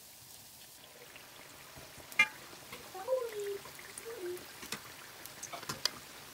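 Samosas deep-frying in hot oil, crackling and sizzling, while a metal slotted spoon is worked through the oil. There is a sharp clink about two seconds in, and a short falling squeak-like tone a second later that comes again briefly.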